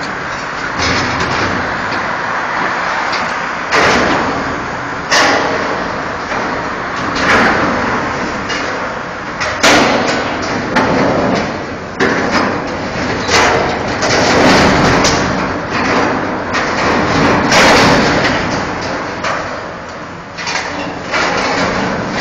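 Demolition excavators with hydraulic shears tearing apart metal brewery tanks: continuous machine noise with metal grinding and scraping, and a sharp crash or bang every second or two as the steel is ripped and crushed.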